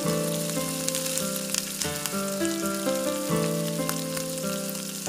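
Butter sizzling as it melts in a hot frying pan, a steady hiss with scattered small pops, under gentle background music.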